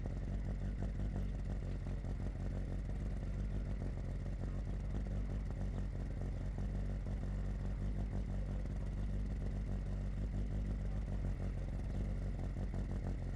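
An engine idling steadily, a low even hum that holds the same pitch throughout.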